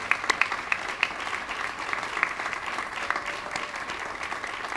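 Crowd applauding: many people clapping, fading slightly near the end.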